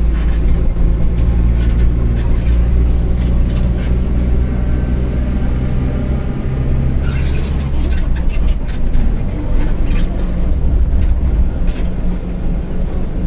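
Mercedes-Benz OF-1722M city bus under way, heard from inside: a steady low drone from the engine and rumbling driveshaft, with body rattles throughout. The drone drops away about eight seconds in.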